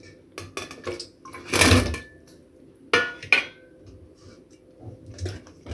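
Button mushrooms tipped off a steel plate into a steel pot of water: a short rush as they slide in and splash about a second and a half in, among light clinks and knocks of the plate against the pot.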